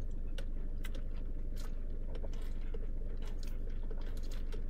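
Steady low hum inside a car, with scattered faint clicks and mouth sounds as a milkshake is sipped through a straw.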